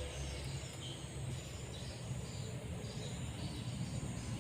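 Steady high-pitched insect chorus, crickets trilling, over a continuous low rumble.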